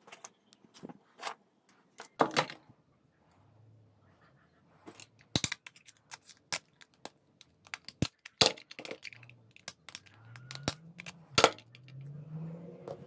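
A utility knife prying apart the plastic casing of a disposable vape and working its end cap loose: irregular sharp clicks, snaps and scrapes of blade on plastic.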